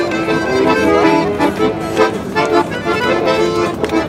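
Several accordions playing a tune together, held chords under a melody with a regular beat.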